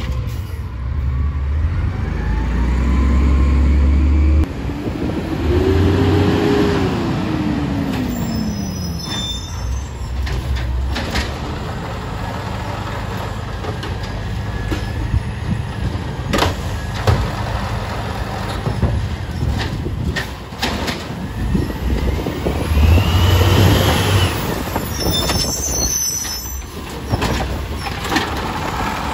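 Automated side-loader garbage trucks at work: the diesel engine revs up and down, the hydraulic lift arm whines rising and falling as it raises and dumps a cart, a couple of sharp knocks ring out, and air brakes hiss.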